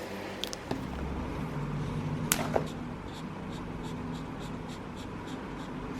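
Faber-Castell Connector felt-tip pens being handled: a few sharp plastic clicks, the loudest about two seconds in, then light, evenly spaced scratchy strokes of a pen tip on paper. A low steady hum runs underneath.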